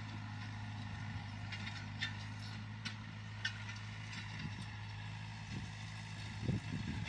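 Luzhong LZ504B 50 hp diesel tractor engine running steadily while it pulls a disc harrow through the field, with a few light clicks scattered over it.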